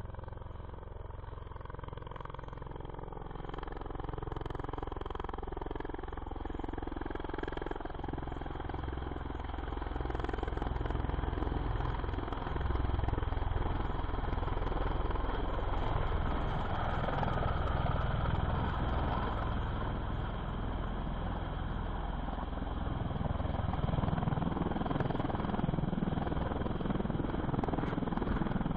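An engine running steadily, with its pitch shifting in the first few seconds and the noise growing gradually louder.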